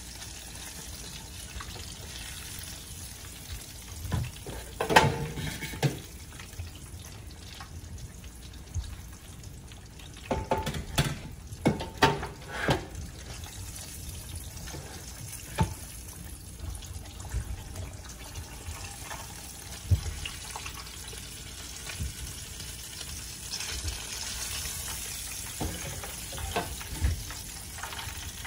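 Kitchen work: a steady hiss with clusters of knocks and clatters about four to six seconds in and again from about ten to thirteen seconds in, and a few single knocks later.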